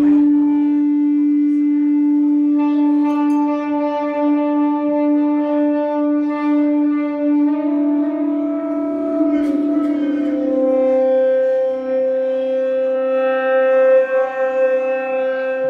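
Live band playing a slow sustained drone: long held tones rich in overtones, with the notes changing about eight seconds in and again about eleven seconds in, and a few light hits in the background.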